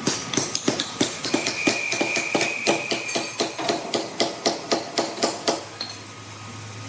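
A hammer striking rapidly and evenly, about four blows a second, stopping about five and a half seconds in; a low machine hum is left after.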